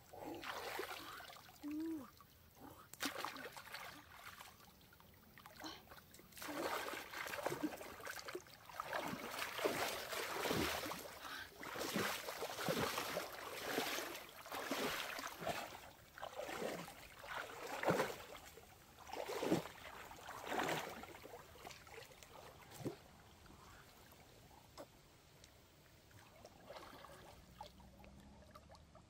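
Water splashing and trickling in irregular bursts, busiest and loudest through the middle with a few sharper splashes, then dying down to a faint trickle near the end.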